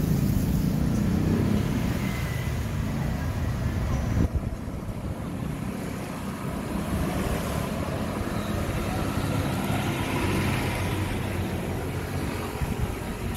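City street noise: motor vehicle engines running and passing in traffic, with faint voices. A single knock sounds about four seconds in, after which the sound turns duller.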